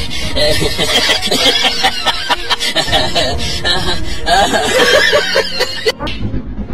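People laughing and snickering in quick bursts over music. The laughter cuts off suddenly about six seconds in, and music with a deep beat takes over.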